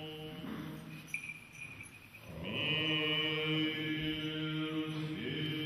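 Male voices singing an unaccompanied Orthodox church chant in held chords. One chord fades out about a second in, and a fuller, louder chord begins about halfway through and is held.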